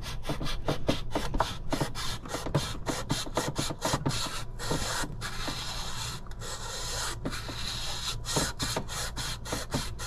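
Sandpaper rubbed by hand over a pipe end to clean it for a hose fitting, in rapid back-and-forth strokes, several a second, that run together into a steadier rasp in the middle.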